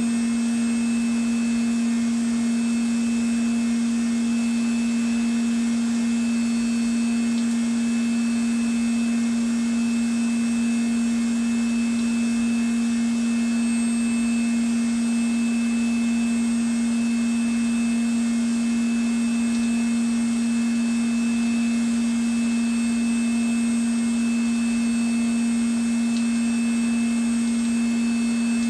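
2010 Haas DT-1 CNC vertical machining centre running: a steady, unchanging hum carrying one strong single tone, with a fainter high whine over it.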